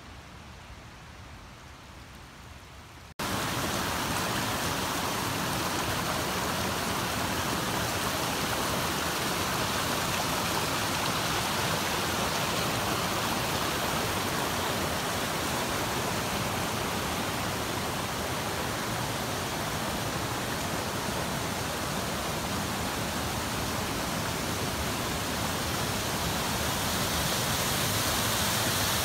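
Rushing creek water tumbling over boulders and rocks, a loud, steady rush. It starts abruptly about three seconds in, after a fainter hiss, and grows a little louder near the end as the water nears a waterfall.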